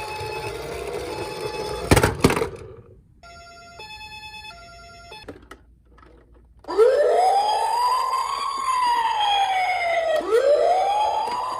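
Toy emergency-vehicle electronic sirens. First comes a two-tone hi-lo 'pee-po' ambulance siren with two sharp knocks about two seconds in. About two-thirds of the way through, a louder wail siren starts, rising and falling in pitch every few seconds.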